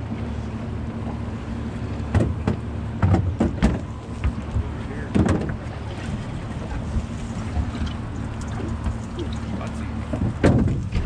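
Steady low hum of the boat on rough, rushing water with wind on the microphone. Several sharp knocks come through: two near the start, another about halfway in, and a louder one near the end.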